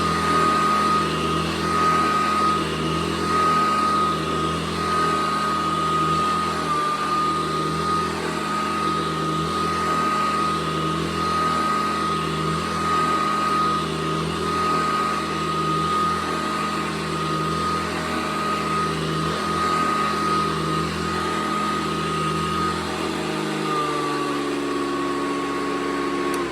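Hoover Decade 80 upright vacuum cleaner running with a steady high-pitched motor whine; near the end the pitch drops slightly.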